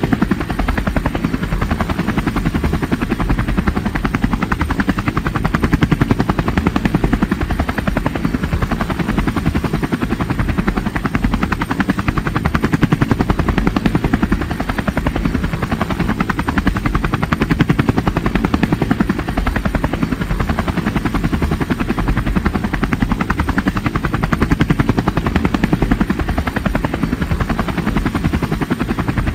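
Multirotor drone's propellers whirring steadily, a fast even rotor pulsing that holds the same pitch throughout.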